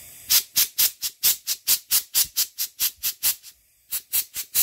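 Compressed-air blow gun firing quick short blasts of air, about four or five a second, into a projector lamp blower fan to blow the dust out of it; the fan is held still so it doesn't spin. The blasts stop briefly about three and a half seconds in, then start again.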